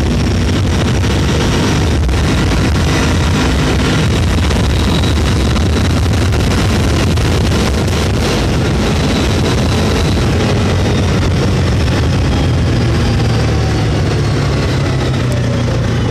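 Vehicle engine running steadily under way on a dirt two-track, with wind buffeting the microphone; the engine's pitch steps up a little about twelve seconds in.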